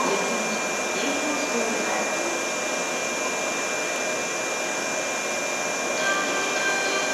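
Steady rushing hum of a railway station platform's ventilation and machinery, with a thin steady whine through it. About six seconds in, faint chime tones begin, the start of the train approach melody.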